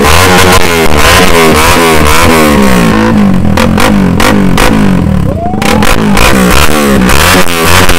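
Several motorcycle engines revving together, their pitches sweeping up and down in overlapping bursts, with a brief dip about five seconds in.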